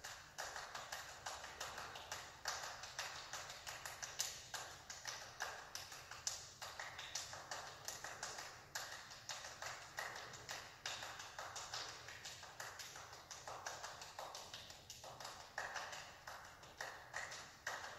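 Two performers clapping their hands in a fast, steady rhythm, the claps running close together with no break.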